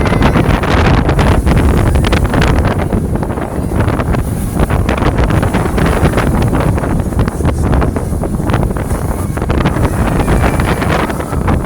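Heavy wind buffeting a microphone carried on a spinning Hurricane carnival ride, a loud steady rumble broken by constant quick irregular gusts.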